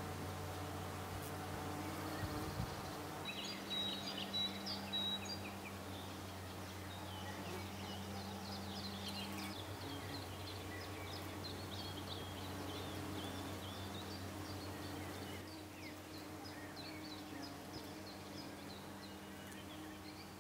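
Birds chirping, many short high calls from about three seconds in until near the end, over a steady low hum.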